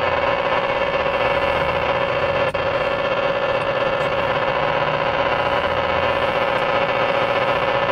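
CB radio receiver putting out loud, steady static hiss with a steady mid-pitched tone running under it, and a brief click about two and a half seconds in.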